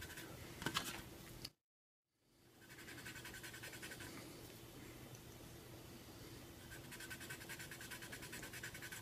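A cotton swab loaded with wet Comet cleanser is scrubbed back and forth on black plastic, giving a faint scratching of quick, rhythmic rubbing strokes. The sound drops to dead silence for about a second near the start.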